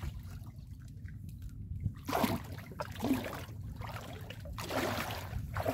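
Shallow water sloshing and splashing in short bursts, about two, three and five seconds in, as someone wades through it, over a low steady rumble.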